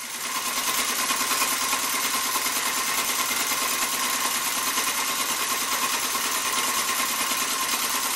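Table-tufting machine running steadily, its needle rapidly punching yarn into the rug's backing cloth in a continuous mechanical buzz with a steady hum. It fades in at the start.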